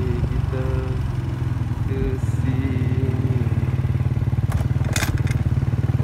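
Small motorcycle engine running steadily while riding along a street, with a couple of brief rattles near the end.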